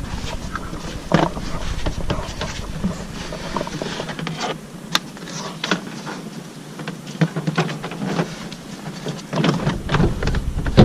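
Plastic interior trim panel of a minivan's sliding door being handled and set into place: scattered light clicks, knocks and rustles.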